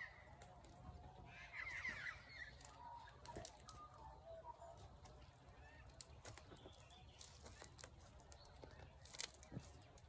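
Quiet outdoor ambience with faint, wavering bird calls in the first half, including a brief burst of chirps, and scattered soft clicks.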